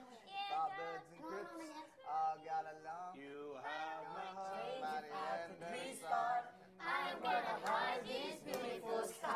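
Several young voices singing a song together without instruments, the pitch wavering through long held notes.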